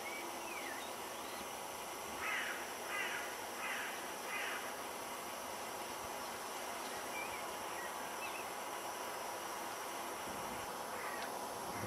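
A bird giving four harsh calls in quick succession, about two-thirds of a second apart, with a few faint chirps from other birds over steady background hiss.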